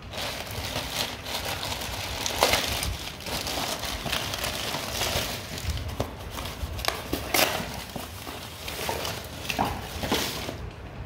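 A plastic courier mailer bag and a cardboard box being handled and opened: continuous crinkling and rustling with sharp crackles, loudest about two and a half seconds in and again a little past seven seconds.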